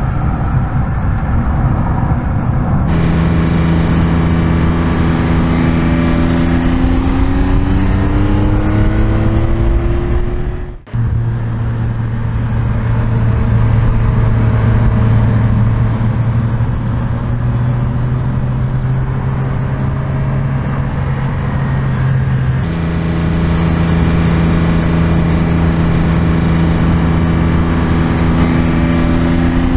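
Exhaust of the 2023 Porsche 911 Carrera T's twin-turbo 3.0-litre flat-six under way: the revs climb through a gear, then hold steady in a cruise, and climb again near the end. The sound cuts abruptly twice, about a third and three quarters of the way through.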